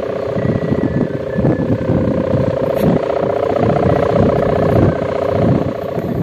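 Sendaren, a Javanese kite hummer (a bow strung with a thin plastic 'mika' ribbon), droning a steady hum as it vibrates in the wind on a flying kite. Wind gusts buffet the microphone underneath.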